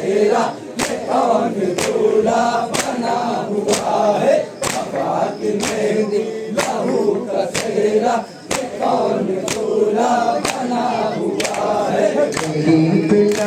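Men chanting a nauha (Muharram lament) together while beating their chests in matam: sharp hand slaps about one and a half a second keep the beat under the chanting voices.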